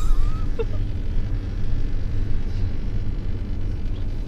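Steady low rumble of a bus engine and road noise, heard from inside the passenger cabin.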